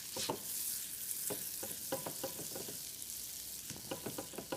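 Butter sizzling as it melts in a hot frying pan: a steady high hiss with many scattered clicks and ticks.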